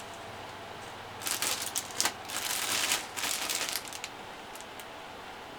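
Plastic model-kit sprues and their bags being handled: crinkling and clattering for about two and a half seconds, starting a little over a second in, with sharp clicks of plastic parts knocking together.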